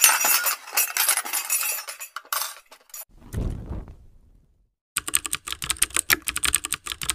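Editing sound effects: a dense crackle of clicks for about three seconds, a short low whoosh, a moment of silence, then a fast run of typewriter-style key clicks from about five seconds in.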